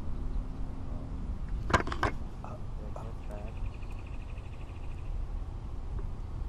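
Handling of a spinning rod and reel: a few sharp clicks about two seconds in, then a fast, even run of light ticks lasting about two seconds. A low wind rumble on the microphone runs underneath.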